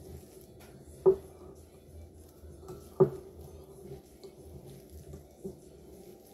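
Wooden spoon stirring thick oat and peanut-butter cookie dough in a glass mixing bowl, with two sharp knocks of the spoon against the bowl, about a second and three seconds in.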